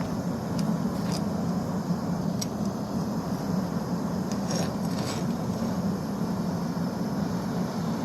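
Two MAPP gas torch burners firing into a mailbox forge lined with fire brick and ceramic wool, giving a steady low roar of burning gas. A few faint ticks sound over it.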